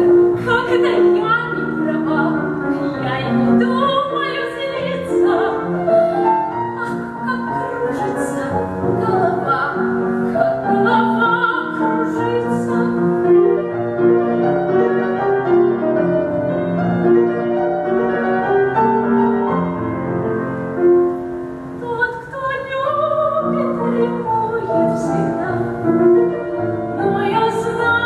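A woman singing a waltz song in a trained, operatic style with vibrato, accompanied by piano.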